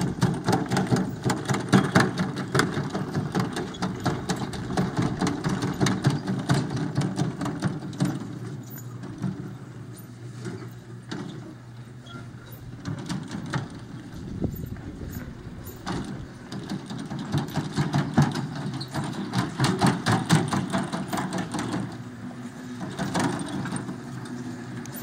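Engine of the vehicle towing a wheeled roping dummy, running steadily, with frequent rattling and clicking over it.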